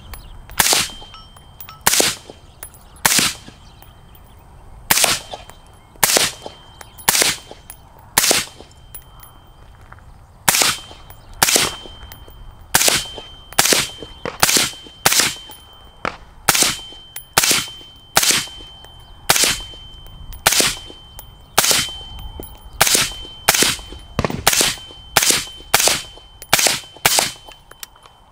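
Suppressed 5.56 AR-15 (Bear Creek Arsenal, AAC SDN-6 suppressor) fired semi-automatically, about thirty shots at an uneven pace of roughly one a second, with some quicker pairs.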